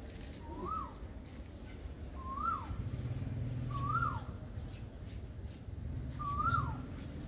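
An animal's call, a short whistle that rises and then drops in pitch, repeated four times about every two seconds. A low steady hum comes in about three seconds in.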